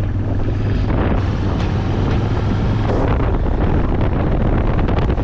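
Royal Enfield motorcycle engine running steadily as the bike rides along, with wind buffeting the microphone.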